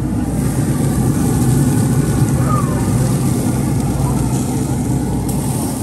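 A running engine: a loud, steady, low drone that holds level throughout.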